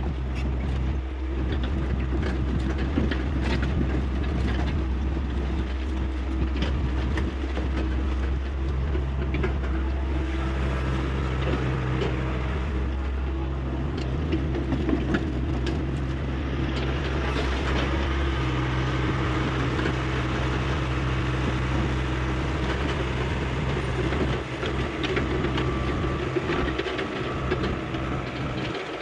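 Hyundai 85A excavator's diesel engine running steadily, with scattered light clicks and knocks over the drone.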